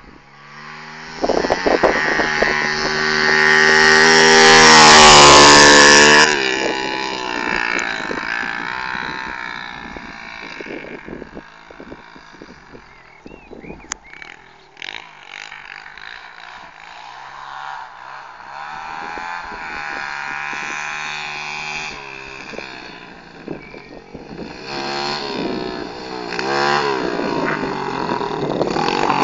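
110cc pit bike's single-cylinder four-stroke engine revving up and down as it is ridden. It is loudest a few seconds in, then fainter and rising and falling with the throttle, and grows loud again near the end as the bike comes back toward the camera.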